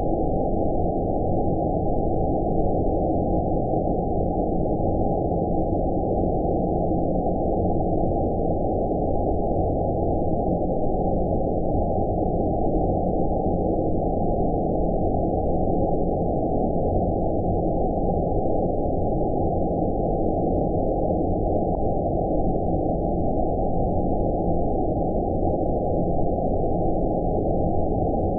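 Steady, deep, muffled noise with no hiss on top: the sleep-machine 'outer space' white noise, a continuous rushing sound that never changes.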